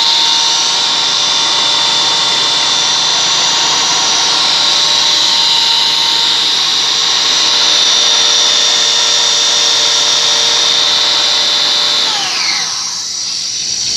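A high-speed electric motor runs steadily with a high whine, then is switched off about twelve seconds in, its pitch falling quickly as it winds down.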